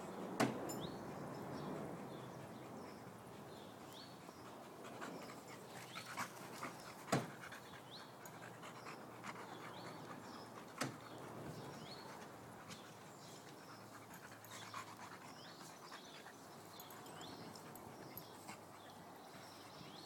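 Dogs panting as they play: a chocolate Labrador and a blue Staffordshire bull terrier puppy, with a few sharp knocks, the loudest near the start and twice more later.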